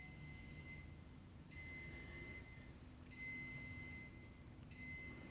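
Fire alarm panel's buzzer sounding faintly: four long, high beeps, each about a second long with short gaps between them. The housing group says the alarm comes from a low battery.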